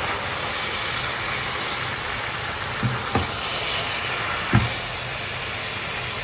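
Spinach and bratwurst being stirred in a stainless steel pot with a silicone spatula: three short knocks of the spatula against the pot, two close together about three seconds in and one a second and a half later, over a steady hiss.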